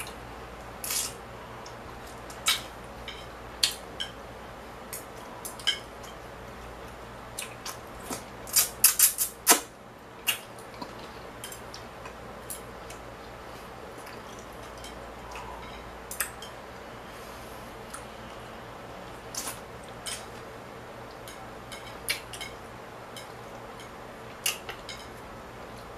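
Chopsticks clicking and scraping against a plate while eating: scattered sharp clicks, with a quick run of several about nine seconds in, over a steady low background noise.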